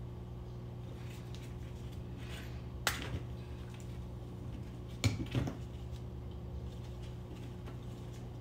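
Small hand tools and connector parts being handled: a sharp click about three seconds in and a short clatter of knocks a little after five seconds, over a steady low hum.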